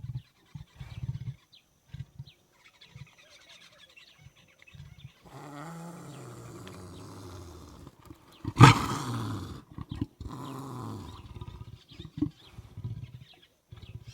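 Leopard growling and grunting: short low grunts for the first few seconds, then longer growls that fall in pitch. One loud roar about eight and a half seconds in is the loudest sound, followed by another growl.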